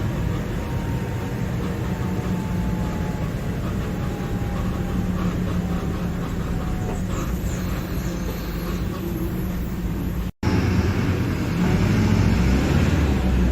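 Mercedes-Benz OF-1721 Bluetec 5 diesel bus engine running steadily, with a faint whine in the first half. The sound drops out for an instant about ten seconds in and comes back louder and deeper.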